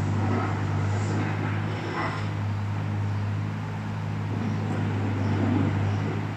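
A steady low hum, as from a motor or electrical appliance, runs unchanged throughout. Above it are faint small handling noises from hands working a greased O-ring onto a metal rod.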